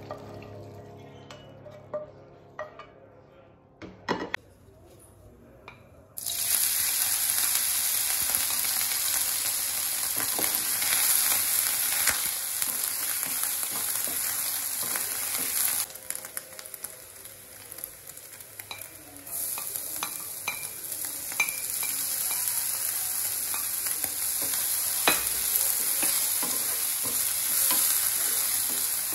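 Diced meat frying in a little oil in a nonstick frying pan, sizzling steadily while a wooden spatula scrapes and taps against the pan as it is stirred. The sizzle starts suddenly about six seconds in, after a few quieter seconds with light knocks, and dips briefly about halfway through.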